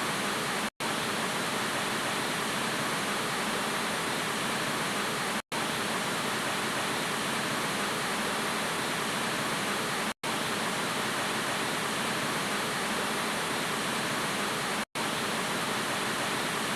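Steady, even hiss of TV static noise. It cuts out for an instant about every four and a half seconds, four times in all.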